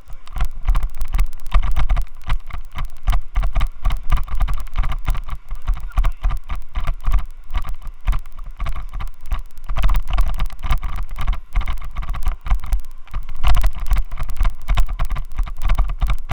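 Loud, rapid rattling and buffeting with a heavy low rumble, picked up by a Xiaomi Yi action camera shaking in its helmet mount; the noise comes from the mount vibrating.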